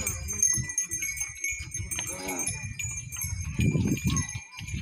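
Small metal bells jingling, with scattered metallic clinks, over a low shuffling rumble. Men give short calls, the loudest about three and a half seconds in.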